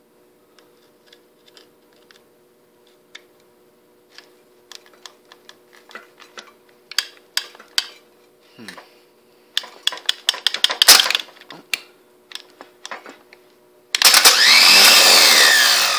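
Removed car starter motor, bench-tested off the car: a run of sharp clicks and snaps, densest about ten seconds in, then about fourteen seconds in the starter spins up with a loud whir that rises and falls in pitch. It spins freely, a sign the starter itself is fine.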